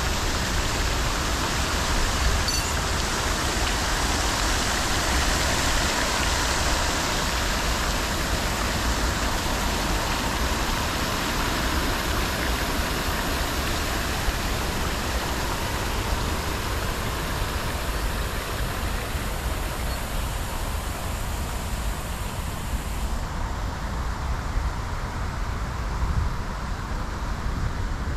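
Steady splashing hiss of a plaza fountain's water jets, slowly fading and dropping away sharply near the end, over a continuous low rumble of distant road traffic.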